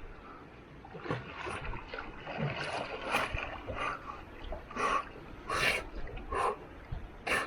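A swimmer splashing through water with uneven strokes: about ten separate splashes, spaced half a second to a second apart.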